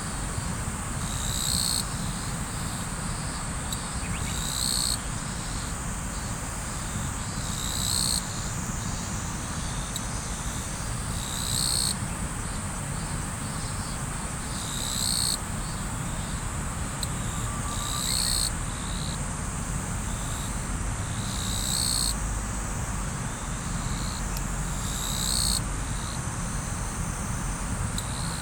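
Riverside ambience: a river's water flowing with a steady rushing noise, and insects calling over it. The insects make a continuous high-pitched trill, with a louder chirping pulse about every three and a half seconds.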